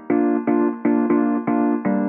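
Background keyboard music: a piano-like tune of short, evenly spaced notes, about four a second.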